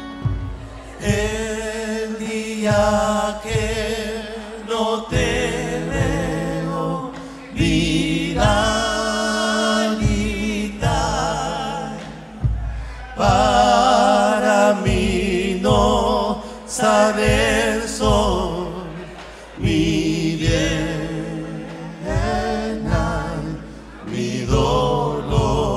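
Argentine folk band playing live: male voices singing together with vibrato over acoustic guitars and drums.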